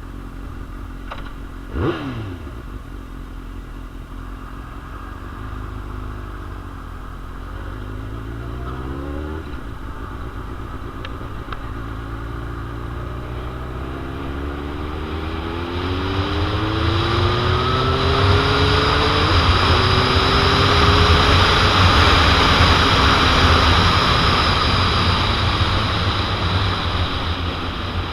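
2001 Suzuki GSX-R750's inline-four engine accelerating through the gears, rising in pitch and dropping back at two upshifts. Heavy wind noise on the microphone builds as speed climbs and becomes the loudest sound in the second half.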